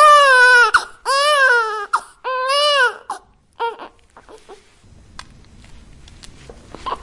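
Newborn baby crying: three long cries of nearly a second each, every one rising then falling in pitch, followed by short broken catches and quieter whimpers.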